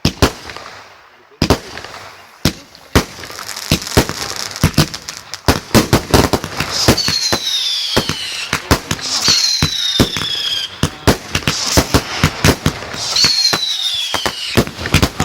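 Fireworks going off in quick succession: a rapid string of sharp bangs and crackling that grows denser about five seconds in, with three whistles, each sliding down in pitch over about a second and a half.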